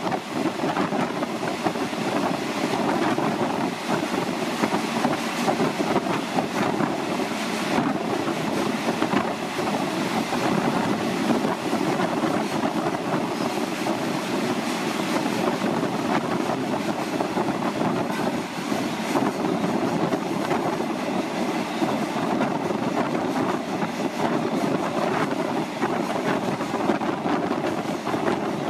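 Passenger train running through a long rail tunnel, heard from inside the carriage: a steady, dense rumble of the wheels on the rails, closed in by the tunnel.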